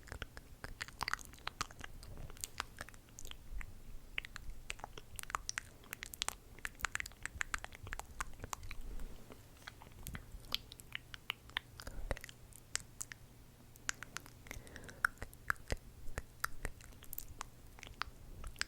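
ASMR mouth sounds made close to the microphone: irregular wet clicks and pops of the lips and tongue, several a second.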